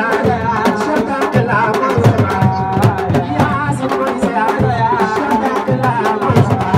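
Young men chanting a devotional song into microphones, amplified through horn loudspeakers, over hand drums struck in a quick, busy rhythm.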